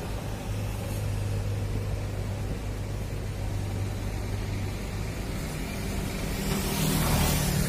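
Steady low rumble of road traffic, with a louder hiss swelling near the end as a vehicle passes close by.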